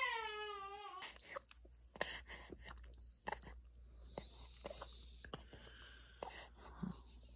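A young baby crying, one falling wail that breaks off about a second in. Then soft handling clicks and a short electronic beep from an ear thermometer about three seconds in.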